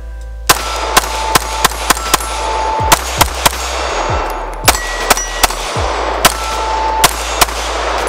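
Glock 19 9mm pistol fired in quick succession, well over a dozen shots in short irregular strings. Each shot is a sharp crack trailing off in echo.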